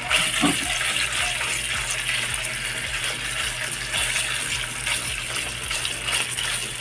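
Red ground meat sizzling steadily in hot oil in a nonstick frying pan, the sizzle starting loud as the meat goes into the pan and pressed down with a wooden spatula.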